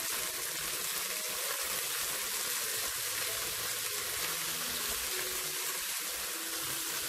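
Chicken wings sizzling steadily in hot oil in a pan, pan-frying with ginger, garlic and scallion whites until lightly browned on both sides.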